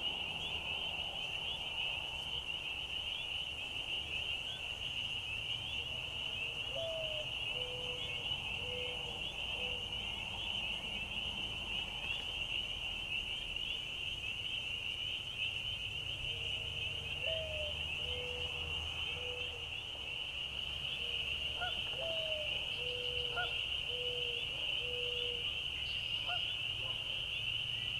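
A steady, dense chorus of high-pitched trilling frogs. Over it a bird calls three times in low, soft cooing phrases; each phrase is a higher, slurred note followed by three or four even, lower notes.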